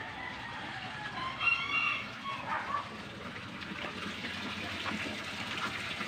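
A chicken calling once, a short pitched call about a second and a half in, over background noise; a steady hiss comes up in the second half.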